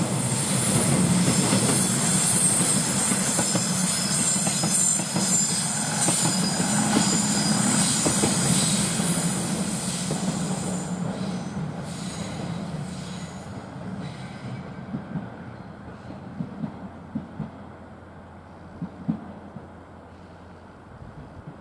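KiHa 110-series diesel railcar set passing with its diesel engines running and a high wheel squeal over the station pointwork. The sound fades as it moves away, with a few sharp clacks of wheels over rail joints near the end.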